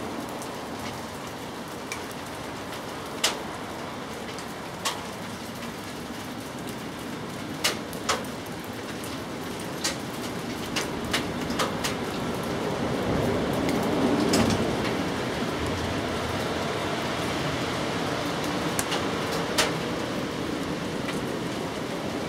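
Steady rain falling, with heavy single drips landing sharply every second or few. The rain swells louder for a few seconds around the middle, then settles back.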